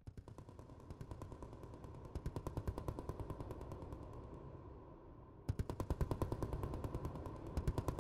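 Background music with a fast, rattling percussive beat of rapid even clicks over a held tone, turning suddenly louder and fuller about five and a half seconds in.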